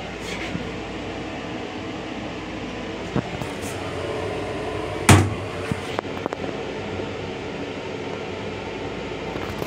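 Steady hum of a commuter rail car's ventilation and running noise in a small lavatory. About five seconds in, a sharp clack as the plastic toilet seat is dropped onto the bowl, followed by a few light clicks; a fainter click comes a couple of seconds earlier as the seat is lifted.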